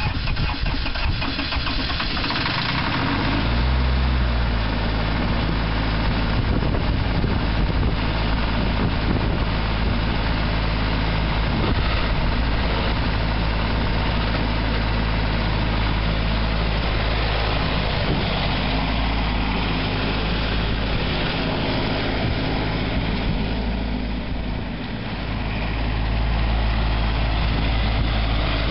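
Ford CM224's 24 hp Shibaura three-cylinder diesel engine running steadily as the mower moves about. The engine sound dips briefly about twenty-four seconds in, then comes back up.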